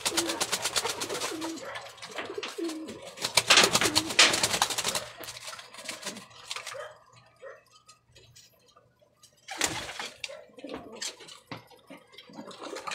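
Domestic pigeons cooing in a wire loft, over a fast flurry of flapping wings in the first five seconds, loudest about four seconds in. After that come scattered flaps and a short burst of flapping a little before the end.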